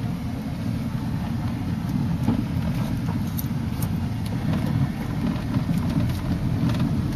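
Steady low rumble of a car's engine and tyres, heard from inside the cabin while it drives along an unpaved road.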